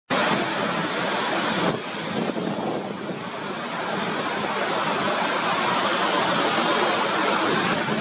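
Waves breaking in a steady rush of surf, with strong wind blowing across the microphone.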